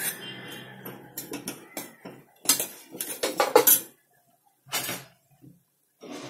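Metal ladle scraping and clinking against a non-stick kadhai while stirring thick frying masala paste. The strokes come irregularly, busiest a few seconds in, with one last knock about five seconds in.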